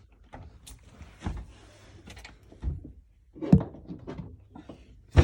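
Scattered knocks and thuds of a cooktop being handled, the loudest two about three and a half seconds in and at the end.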